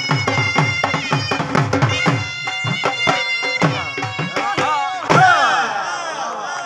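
Dhol drums beating a fast, steady rhythm under shehnai pipes holding long, reedy notes. The music breaks off about four seconds in, and a man's voice takes over near the end.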